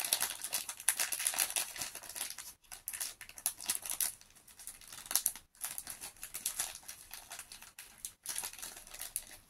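Plastic wrapper of a counterfeit Pokémon booster pack crinkling in short irregular bursts as it is handled and torn open by hand.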